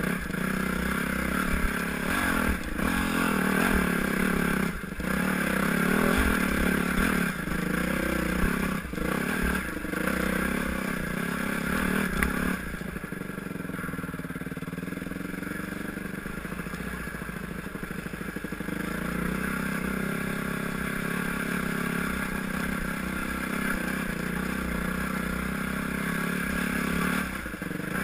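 Yamaha YZ250F dirt bike's single-cylinder four-stroke engine running and revving on a rough rocky trail, with scattered knocks and clatter as the bike bounces over stones. The engine drops lower and quieter a little under halfway through, then picks up again.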